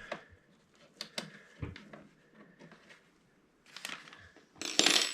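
Scattered light clicks and knocks of hands and a tool working on the 3D printer's parts to take out a screw, then a louder scraping rustle about four and a half seconds in.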